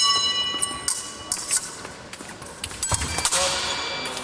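Electronic fencing scoring machine sounding its tone at the start, signalling a touch in an épée bout, the tone fading over about a second. Sharp clicks of blades and footwork follow, then a thump and a rush of noise about three seconds in.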